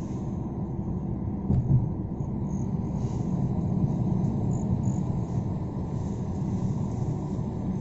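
Steady low rumble of a car's engine and tyres on the road while driving, with a brief knock about a second and a half in. A few faint high chirps sound a few seconds in.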